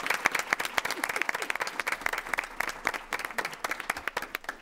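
A small group of people applauding with dense, fast hand clapping that thins out and grows fainter, dying away near the end.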